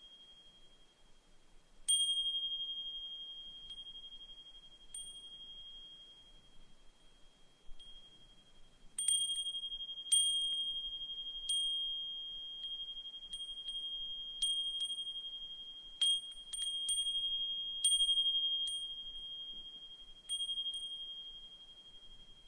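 Brass suzumushi furin (Japanese wind chime) ringing with one high, clear tone as its clapper strikes it at uneven intervals, each strike ringing on and slowly fading. The strikes are sparse at first and come thick and fast from about nine seconds in until near the end.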